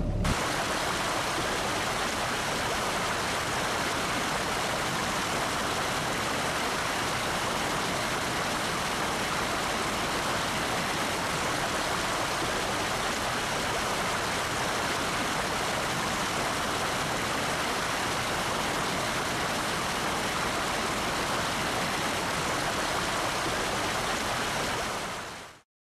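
Steady, even rushing noise with no rhythm or engine tone, fading out quickly near the end.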